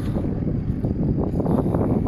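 Wind buffeting the microphone: a loud, ragged rumble with uneven gusts.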